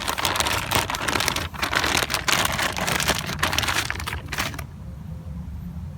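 Crinkling and rustling as a new motorcycle air filter is handled, with many small clicks, stopping about four and a half seconds in and leaving a low steady hum.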